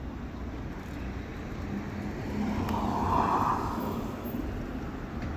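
City street traffic noise with a steady low hum, swelling louder for about a second and a half around the middle.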